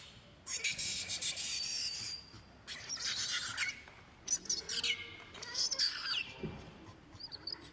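Infant long-tailed macaque crying in shrill, high-pitched squeals: four bursts of a second or so each, some sliding down in pitch.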